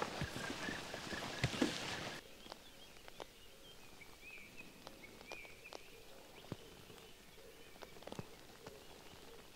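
Footsteps and rustling through field vegetation with sharp ticks, cutting off abruptly about two seconds in. Then a quiet open-field background with a faint bird call in the middle and scattered light ticks.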